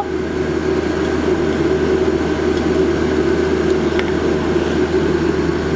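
Blacksmith's forge running with a steady rushing noise, with no hammer blows.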